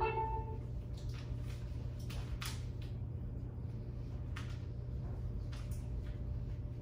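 Room tone: a steady low hum with a faint steady tone above it, and a few faint scattered clicks and rustles.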